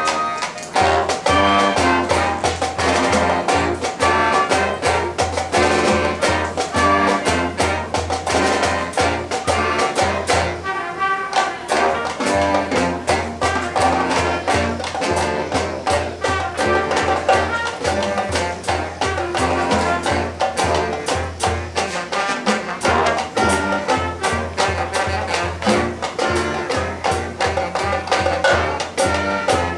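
High school marching band playing its field show: brass chords over a steady drumline beat.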